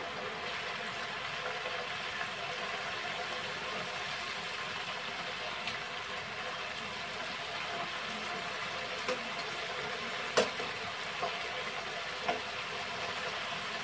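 Chicken drumsticks deep-frying in a pot of hot oil: a steady sizzling hiss. A few sharp clicks from metal tongs knocking the pot as the pieces are turned, the loudest about ten seconds in.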